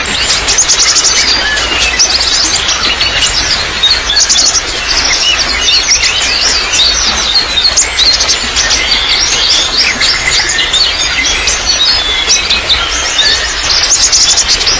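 Many birds chirping and twittering densely, with quick high trills, over a steady trickle of running water.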